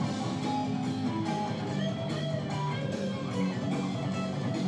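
Background music with guitar playing.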